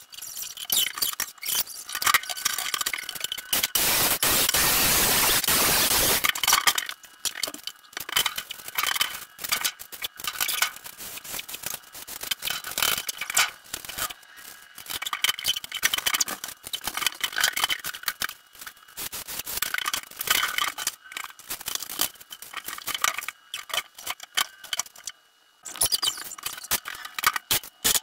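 Carpentry work: dense clattering, knocking and scraping of boards and hand tools, with a loud burst of power-tool noise lasting about two seconds, starting about four seconds in.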